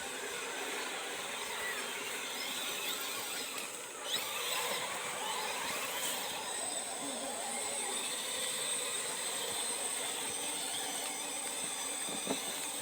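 The electric motor and gears of an RC rock crawler whining steadily as it drives. A higher steady whine joins in about halfway through.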